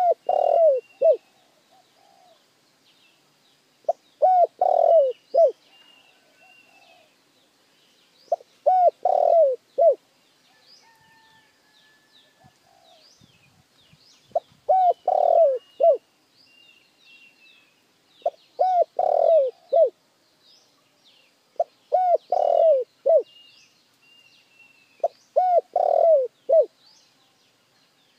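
Spotted dove cooing in repeated phrases of four or five low coos, a phrase every three to five seconds. It is a decoy dove's call, used to draw in and excite wild doves. Small birds chirp faintly between the phrases.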